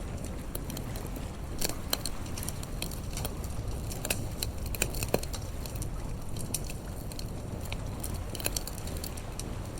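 Campfire crackling, with sharp irregular pops and snaps of burning wood over a low steady rumble.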